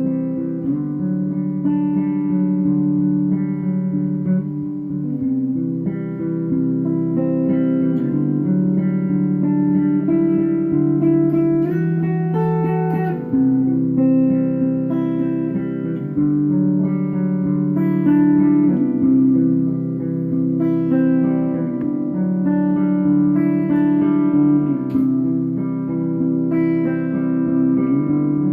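Guitar playing a continuous run of chords and plucked notes, the chords changing every second or two.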